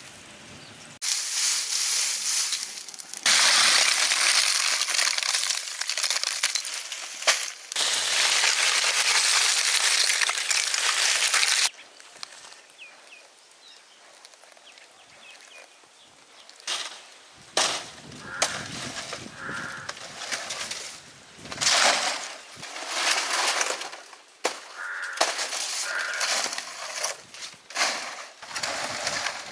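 Dry grass burning fiercely in a dug earth pit, a loud, dense crackle that cuts off suddenly about twelve seconds in. Later come scattered short rustles and crunches of dry leaves and palm fronds.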